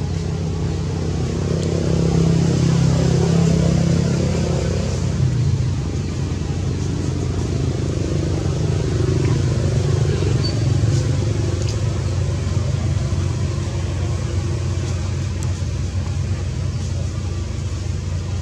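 A motor running steadily with a low hum, a little louder for a few seconds near the start.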